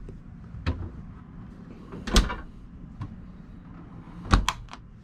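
Doors of a three-way RV refrigerator being swung shut: two solid thumps, about two seconds in and again near the end, with a few small clicks around them.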